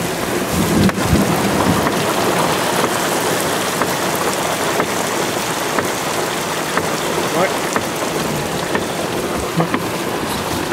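Heavy rain pouring down during a thunderstorm, a steady, dense hiss.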